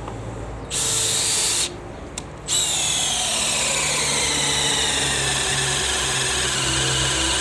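Makita XPH06 18 V cordless hammer drill in high gear boring with a 10 mm auger bit: a short burst, then a long steady run whose whine slowly drops in pitch as the bit bites deeper and the motor slows under load.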